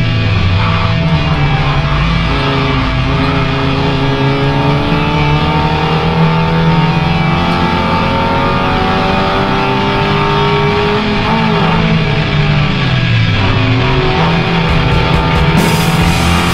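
Nissan Pulsar N14 SSS race car's four-cylinder engine heard from inside the cabin at high revs, slowly rising in pitch as the car accelerates. The pitch dips briefly twice, about a second in and again about three seconds before the end, as the driver lifts or changes gear. Rock guitar music plays over it.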